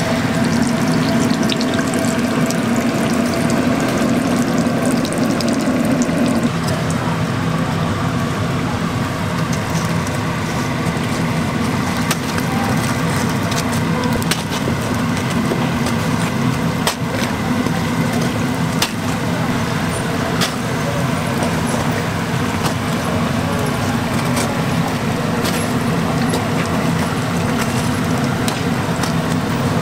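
Breaded croquette toast sizzling and bubbling in a deep-fryer of hot oil, a steady frying noise over a low hum. A few sharp clicks of metal tongs and a wire skimmer against the fryer come in the middle part as the pieces are lifted out.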